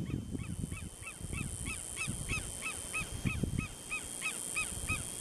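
Southern lapwing calling: a steady series of short, sharp notes, about three a second, each rising and falling in pitch, loudest around the middle. A low rumble runs underneath.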